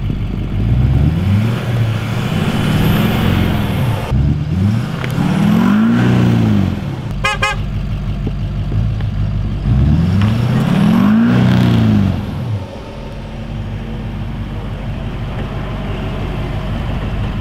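Pickup truck engines revving hard under load, one truck pulling another out of a snowy ditch on a tow strap; the pitch climbs and falls several times. After about twelve seconds they settle to a steadier, lower run.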